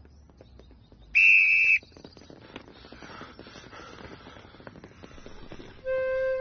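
A single loud, steady whistle blast about a second in, lasting under a second. Near the end a soft held music chord begins.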